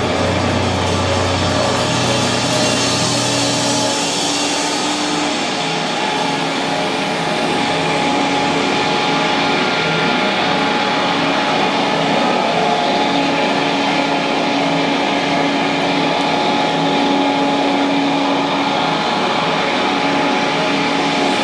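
Doom metal band playing live: heavily distorted electric guitars and bass hold long, droning notes through loud amplifiers, with no drum beat. A low bass note drops out about four seconds in, and the guitars ring on.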